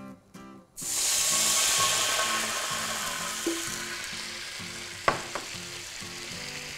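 Water poured into a hot frying pan to deglaze the browned meat juices: a sudden loud sizzle starts about a second in and slowly dies down, with two sharp clicks near the end.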